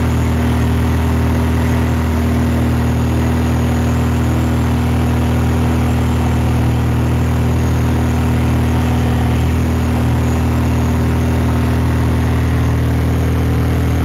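Superior XP-360 four-cylinder aircraft engine and propeller of an RV-7A droning steadily in flight, heard inside the cockpit. The pitch and loudness hold even throughout.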